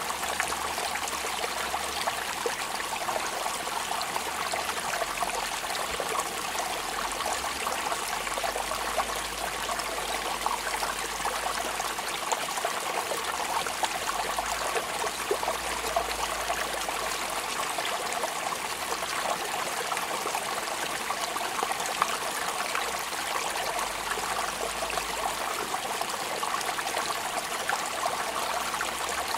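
Steady rain falling, a dense even patter of drops with no let-up.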